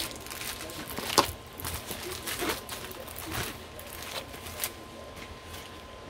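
Plastic packaging of a diamond painting kit crinkling and rustling as it is handled, with scattered light clicks and one sharper click about a second in.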